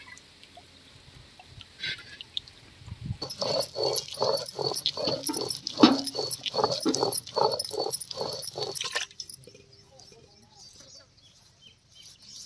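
A dog barking repeatedly, about two barks a second, starting about three seconds in and stopping abruptly some six seconds later.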